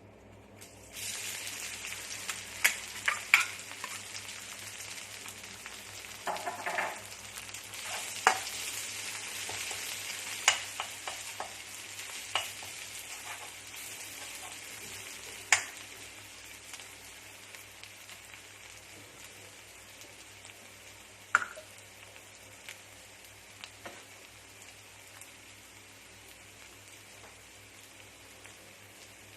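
Kale and crispy pork stir-frying in hot oil. The sizzle starts suddenly about a second in and slowly fades, with sharp clinks of a spatula against the pan scattered through it.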